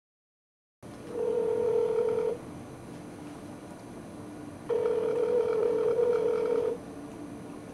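Telephone ringback tone heard down the phone line: a steady pitched tone rings twice, the second ring about two seconds long, with a faint line hiss in the pauses. The call is ringing at the other end and has not yet been answered.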